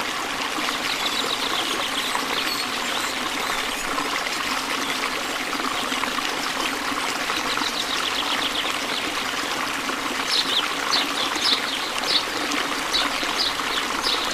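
River water running and trickling steadily. In the last few seconds a run of short, high chirps sounds over it.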